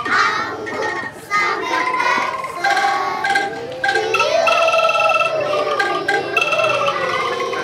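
Children's choir singing a song together, accompanied by angklung, whose shaken bamboo tubes give short held notes under the voices.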